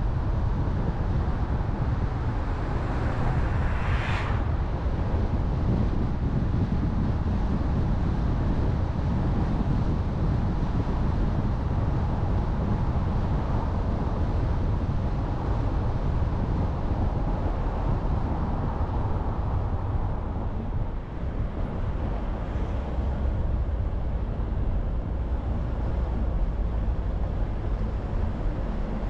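A car driving along a road: steady engine, tyre and wind noise, with a brief hiss about four seconds in.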